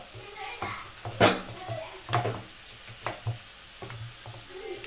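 Wooden masher pounding and squishing soft-cooked dal in an aluminium pressure cooker: a handful of wet knocks at irregular intervals, the loudest a little over a second in and about two seconds in.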